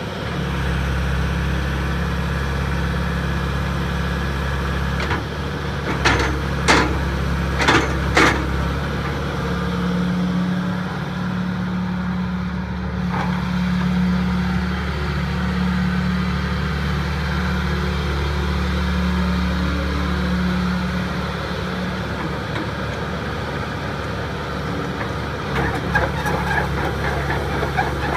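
John Deere 490E crawler excavator's diesel engine running steadily while the boom and bucket are worked, its note swelling in and out through the middle. About six seconds in come four sharp knocks within two seconds, and near the end a rattling clatter.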